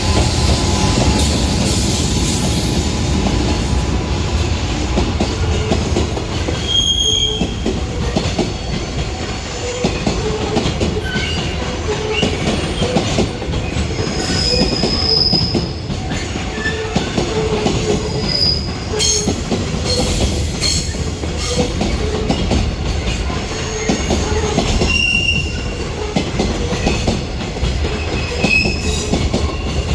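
Container freight train rolling past: a steady heavy rumble of the wagons' wheels with rhythmic clatter over the rail joints, and brief high wheel squeals now and then.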